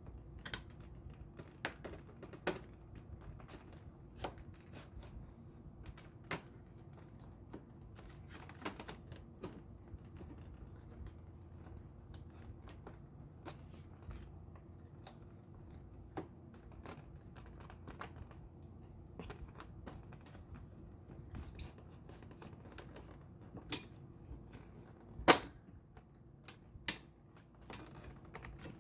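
Scattered light plastic clicks and knocks as the side panels of a TCL window air conditioner are slid into its frame, with one sharper, louder knock near the end.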